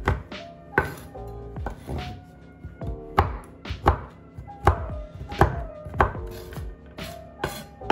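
A large kitchen knife chopping a bar of chocolate on a wooden board: sharp knocks of the blade on the wood, about one or two a second at an uneven pace.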